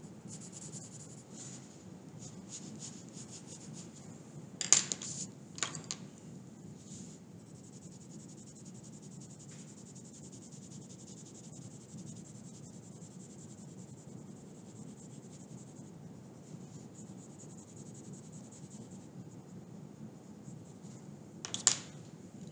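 Coloured pencil scratching on paper in steady shading strokes. A few brief louder clicks stand out, twice about five seconds in and once near the end.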